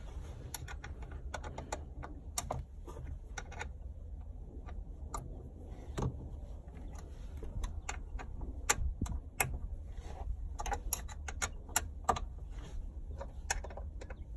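Allen (hex) key turning steel Allen-head bolts by hand, giving irregular sharp metallic clicks each time the key is shifted and reseated in the bolt head, loudest in a cluster in the middle. A steady low hum lies underneath.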